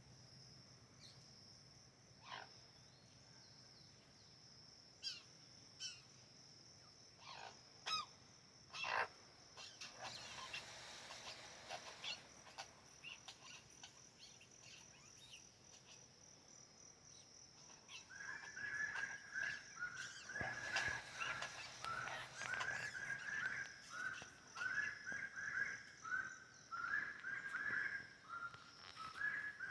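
Forest birds calling over a steady high-pitched drone. Scattered single calls come first, then about two-thirds of the way in a bird starts repeating a short call over and over, about two a second.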